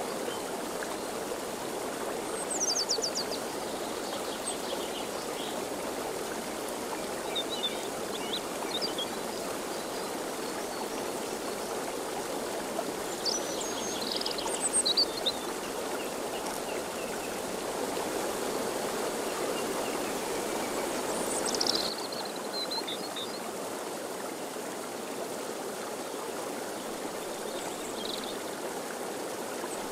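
Steady rushing outdoor noise with short high bird chirps now and then, the loudest cluster about halfway through.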